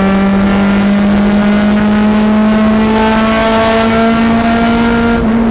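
Honda S2000's four-cylinder engine revving through a straight-pipe exhaust with a high-flow cat, held at high revs as one steady note that creeps slightly higher in pitch. It is loud, a sound the owner likens to a Honda Civic.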